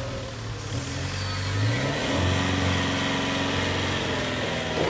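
Linde HD25 diesel forklift engine running; about two seconds in the revs step up and hold higher as the forks are raised on the hydraulic mast.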